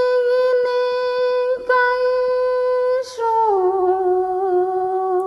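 A woman's voice singing an icaro, the healing chant of an Amazonian ayahuasca ceremony, in long held notes on one pitch. The note breaks off briefly twice, then steps down to a lower note about three seconds in.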